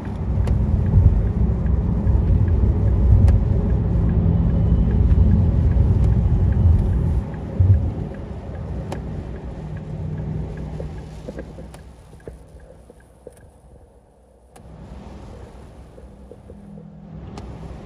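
Road and engine noise inside a car cabin at motorway speed, a low rumble that is strongest for about the first seven seconds and then eases. A few light sharp ticks are scattered through it.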